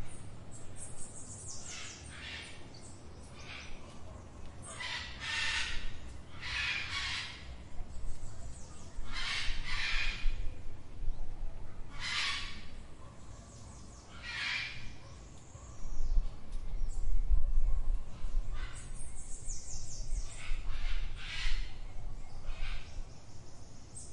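Harsh bird calls repeating every second or two, over a low traffic rumble that swells about two-thirds of the way through.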